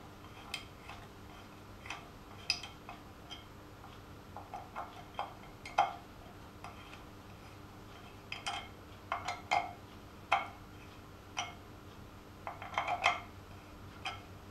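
Light, irregular metallic clicks and ticks from a hand tool working in a stud hole of an aluminium oil housing as a thread-repair coil insert is fitted, over a faint steady hum.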